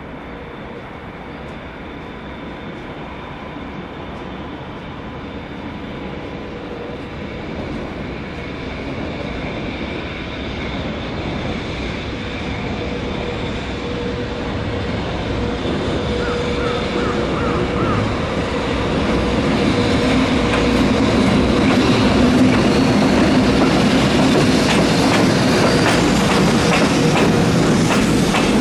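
EH500 electric locomotive hauling a freight train, approaching and growing steadily louder, with a steady whine. From about two-thirds of the way in, the wheels clatter over rail joints as it comes close.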